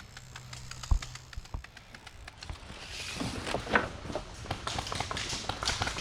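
Footsteps and rustling through dry leaves and brush, with irregular small clicks and a single heavy thump about a second in; the crunching and rustling grow busier after about three seconds.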